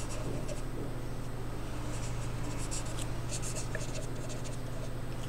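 Felt-tip sketch pen writing on a sheet, its tip scratching in clusters of short strokes as letters are formed, with a steady low hum underneath.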